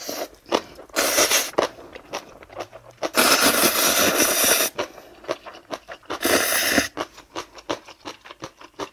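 Loud slurping of spicy instant ramen noodles and broth, three times: a short slurp about a second in, a long one of about a second and a half around the middle, and another short one near the end. Wet chewing clicks fall between the slurps.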